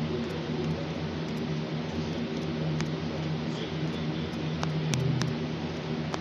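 Steady low hum of background noise picked up by the microphone, with a few sharp clicks from taps while typing on a tablet's touchscreen keyboard, most of them in the second half.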